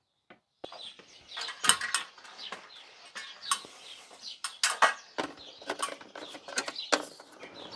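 Irregular light clicks and knocks of a plastic bug zapper being handled and hung up on a hook.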